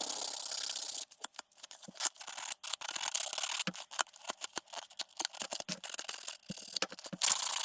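Protective plastic film being peeled and pulled off a painted Lexan (polycarbonate) RC body shell: a rubbing hiss, then a long run of irregular crackles and ticks as the film crinkles.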